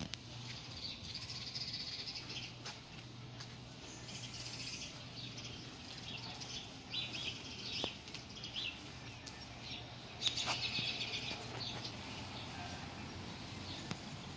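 Small birds chirping in repeated short bursts over a steady low hum, with a sharp click about ten seconds in.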